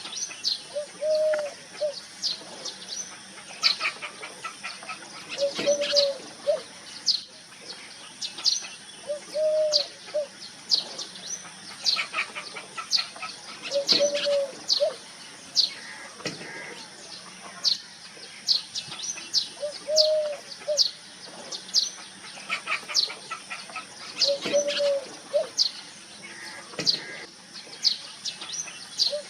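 A wild dove cooing, one short arched coo about every four to five seconds, among many quick, sharp chirps from small birds.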